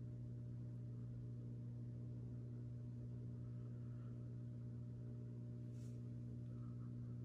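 Steady low hum of saltwater aquarium pumps and filtration running: a constant drone of several stacked tones that does not change.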